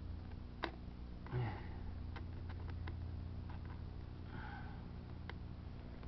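Small sharp clicks of a screwdriver working the screw on a Briggs & Stratton Quantum engine's air filter cover, with two breathy sniffs, about a second and a half and four and a half seconds in, over a steady low hum.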